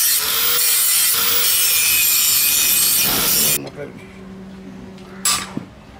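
Handheld angle grinder grinding the steel edge of a hand-forged billhook: a loud, steady grinding hiss that cuts off sharply about three and a half seconds in. About five seconds in, a single sharp metallic tap of a hammer on the blade.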